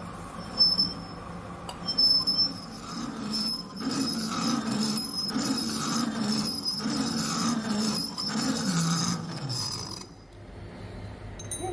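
A 4 mm parting insert cutting a snap ring groove in a bore, squealing high with tool chatter over a low hum that pulses about every half second. The cut stops abruptly about ten seconds in.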